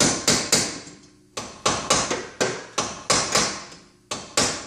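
Ball-peen hammer striking a bolt used as a drift, tapping a Porsche 914 rear wheel bearing out of its hub from the backside by its outer race. A run of sharp metal-on-metal blows comes about three a second, with a short pause about a second in. The bearing is nearly free.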